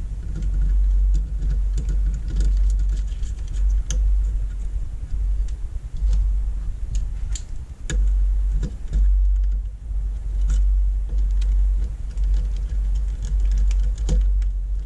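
Scattered small clicks and taps of a screwdriver and small parts being handled on a monitor's circuit board, over a steady low rumble.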